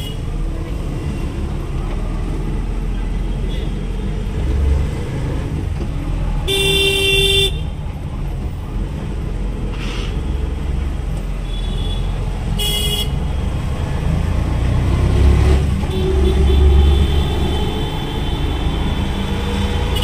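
Busy street traffic: engines running with a steady low rumble and vehicle horns honking, a horn blast of about a second some six seconds in and a shorter toot near the middle.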